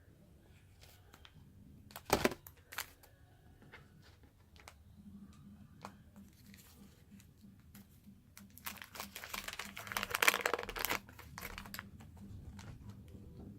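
A wax-paper card pack wrapper being torn open and crinkled by hand, with a sharp crack about two seconds in and a longer stretch of crinkling and tearing near the end.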